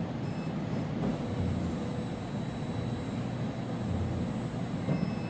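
Steady low mechanical hum of an ELISA microplate reader running its measurement, with a faint high electronic whine above it.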